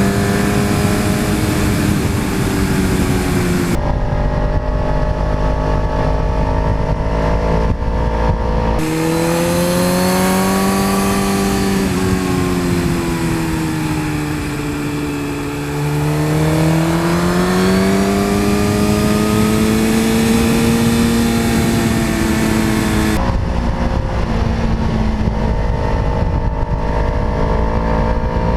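Sport motorcycle engine ridden hard on a twisty road, heard from an on-bike camera under a steady low rumble. The engine note falls for a few seconds about halfway through, then climbs again as the bike pulls out of a bend, and the sound changes abruptly a few times where the footage cuts between the two bikes' cameras.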